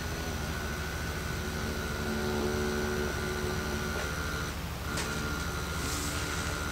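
Motor of a KATO N-gauge C11 steam locomotive model singing steady electronic tones from its PWM drive, a mock VVVF inverter sound, as it runs slowly; the tones step to new pitches a couple of times.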